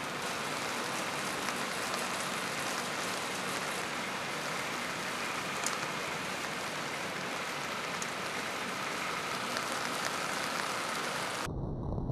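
Steady rain during a thunderstorm: an even hiss with a couple of sharper drop ticks. Near the end the sound cuts off abruptly and a deep low rumble takes over.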